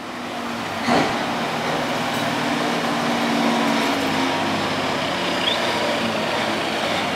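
Road traffic at a street intersection: vehicle engines running steadily, among them trucks approaching, with a sharp knock about a second in.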